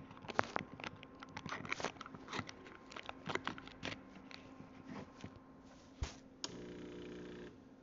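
Quick clicks and crinkling from handling for about six seconds, then an espresso machine's pump buzzes steadily for about a second and stops.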